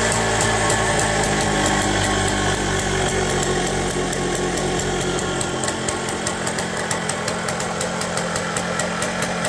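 MZ TS125's single-cylinder two-stroke engine running. Its revs drop over the first few seconds, then it settles into an uneven idle with a regular tick about four times a second.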